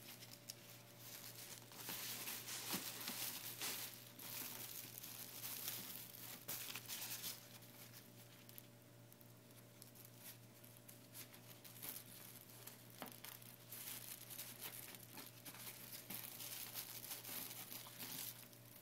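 Crinkling and rustling of a softbox's silver metallic lining and white baffle fabric being handled and tied, in two stretches of several seconds each with a few light clicks.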